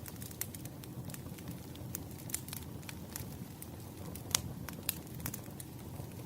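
Campfire crackling: a low, steady rush of burning wood with irregular sharp pops and snaps, the loudest pop about four seconds in.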